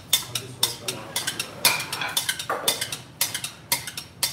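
Metal slotted ladle clinking and knocking against a steel pot and a terracotta serving bowl as foul is ladled out: a quick, irregular run of sharp clinks, about three or four a second.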